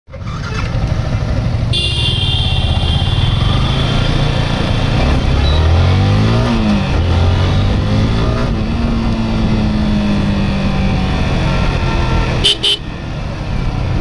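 Yamaha YZF-R15M's single-cylinder engine pulling away and accelerating: the revs climb and drop at a gear change around six to seven seconds in, then hold steady as the bike cruises. Vehicle horns honk in the surrounding traffic about two seconds in.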